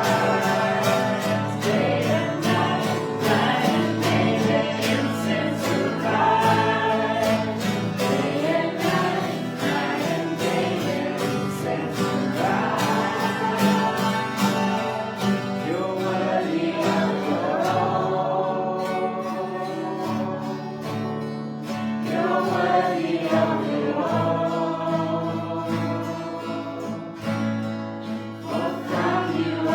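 Worship song: a group of voices singing a melody over instrumental accompaniment, with sustained low notes and a steady beat.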